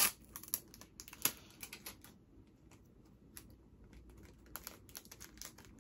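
Scattered light clicks and taps of small items such as merch cards and packaging being handled on a desk. A sharp click comes right at the start and another about a second in, and the clicks grow busier near the end.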